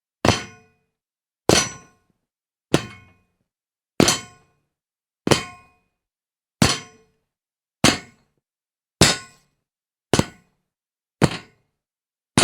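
Jumping sound effect: a series of short metallic clangs, about ten of them, evenly spaced a little over a second apart. Each strikes sharply and rings briefly before dying away.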